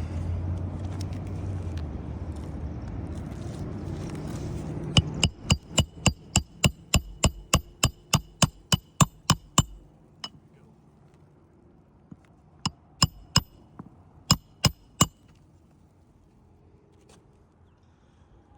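Hammer blows on a metal roofing bar, working an old nail loose under three-tab asphalt shingles. A steady low rumble comes first. About five seconds in, a rapid run of about twenty blows follows at roughly four a second, then a pause and about seven more spaced blows.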